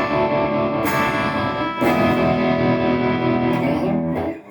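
Les Paul electric guitar through a Fender Tonemaster Twin Reverb amp, with a JHS Bonsai overdrive pedal engaged in its Tube Screamer setting. Overdriven chords are struck and left to ring, then struck again about two seconds in.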